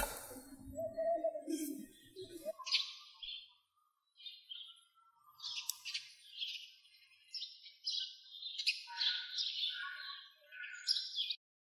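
A sharp chop right at the start as a cleaver blade bites into a wooden stump, then birds chirping and singing, a string of short calls that stops abruptly near the end.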